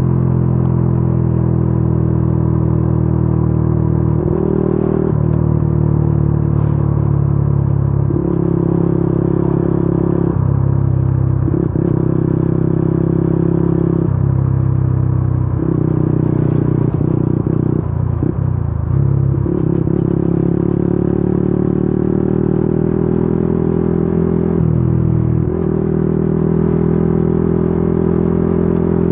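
Yamaha Y15ZR's 150 cc single-cylinder four-stroke engine running under way. Its pitch holds for a few seconds at a time, then steps down or breaks off briefly several times as the throttle changes, and climbs slowly near the end.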